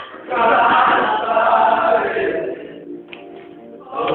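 A group of men singing loudly together as a choir, in two long sung phrases with a quieter dip between them.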